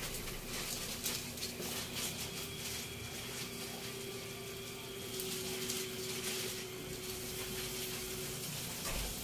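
Hiss and crackle of food cooking on a stove, with a steady hum underneath that stops near the end.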